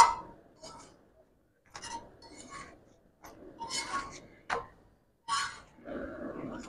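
Metal roti tongs clinking and scraping against an iron tawa and a gas burner grate as a roti is turned over the open flame: a loud click at the start, then about half a dozen short, separate clinks and scrapes.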